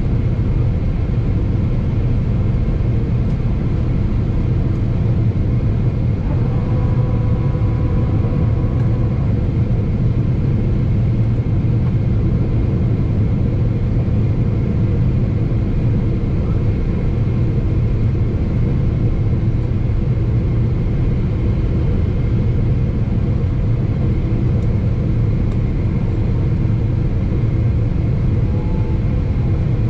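Steady in-flight cabin noise of a Boeing 777-300ER on approach, heard from a window seat beside the engine: the deep, even rumble of its GE90-115B turbofan and the airflow over the fuselage.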